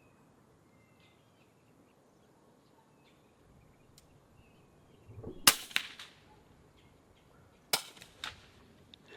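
Two sharp air rifle shots about two seconds apart, each followed by a few lighter clicks. Faint bird chirps come before the first shot.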